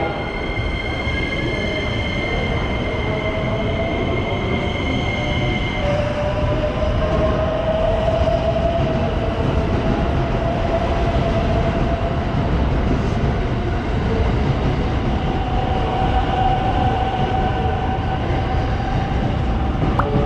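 JR West electric commuter train moving through the platform, with steady rumble of wheels on rail. A pair of steady high tones cuts off about six seconds in. From there a motor whine rises slowly in pitch as the train gathers speed.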